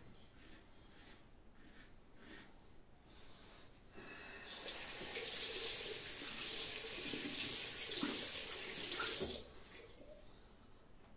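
A few faint strokes of a Mühle R41 safety razor across lathered stubble, then a bathroom tap running into the sink for about five seconds as the razor is rinsed, starting about four seconds in and cutting off suddenly.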